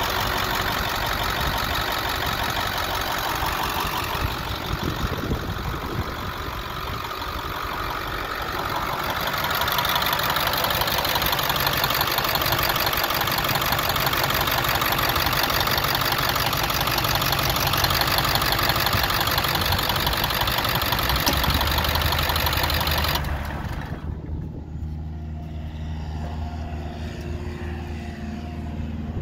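International T444E 7.3-litre V8 turbo-diesel idling steadily with its diesel clatter. Near the end the sharp clatter suddenly drops away, leaving a lower, steady hum.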